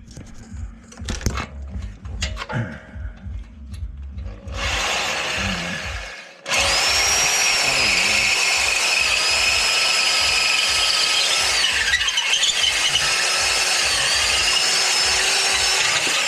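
Electric drill boring through the catalytic converter in a motorcycle exhaust to gut it. After some clattering of handling and a short first run, it runs steadily under load for about ten seconds with a high whine that dips briefly about halfway through.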